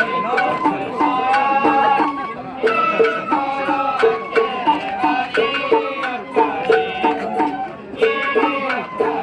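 Sawara festival hayashi played on a float: a bamboo shinobue flute carrying a melody of held high notes over a steady taiko drum beat, about two strokes a second.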